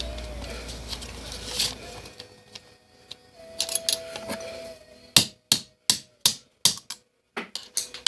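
Hammer striking a lineup pin to knock plastic packaging out of new sockets held in a vise: a run of sharp, evenly spaced metal taps, about three a second, starting about five seconds in. Lighter metal clinks come before it.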